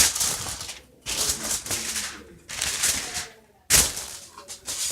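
Rustling and crinkling in several bursts of about a second each, with quiet gaps between them and a sharp knock near the end: sheet material being handled.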